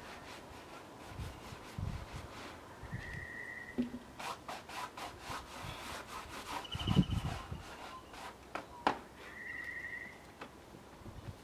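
Gloved hand brushing and rubbing sawdust off freshly milled blackwood slabs: a run of quick scrapes, with a dull thump about seven seconds in as a slab is handled.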